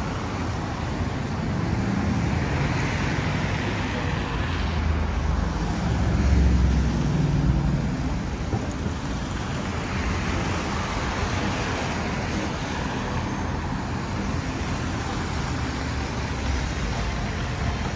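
City street traffic: cars driving past on a multi-lane road, a steady wash of engine and tyre noise with vehicles swelling and fading as they pass. A louder low rumble from a passing vehicle peaks about six to seven seconds in.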